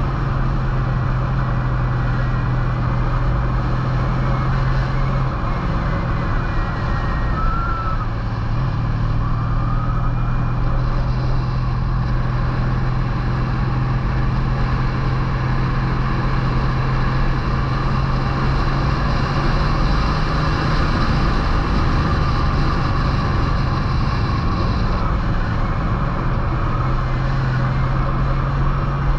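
Touring motorcycle's engine running at a steady cruise, with wind and road noise over the on-board microphone. The engine note drops a little about five seconds in and rises again near the end as the rider works through the curves.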